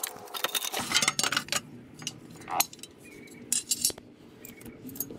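Metal hand tools and small metal parts clinking and tapping in scattered sharp clicks, from unbolting a bracket under a car.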